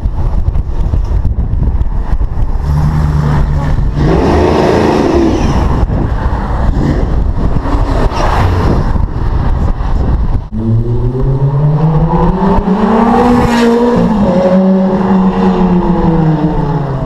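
Car engine accelerating hard and passing close by. Its note climbs through the revs, peaks as the car goes past about two-thirds of the way in, then falls in pitch as it moves away. A shorter burst of engine revving comes about a quarter of the way in.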